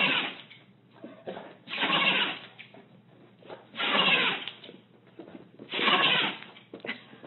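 A small dog vocalising in rough, growling bursts, about four of them, each under a second long and roughly two seconds apart.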